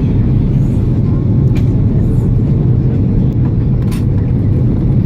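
Airbus A330-300 jet airliner in flight: a steady, loud, low rumble of engines and rushing air. A couple of faint clicks sound about a second and a half in and near four seconds.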